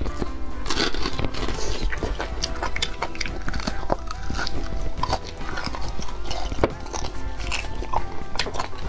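Mouth sucking and slurping marrow out of the open end of a large cooked bone, with many wet smacking clicks and chewing, over background music.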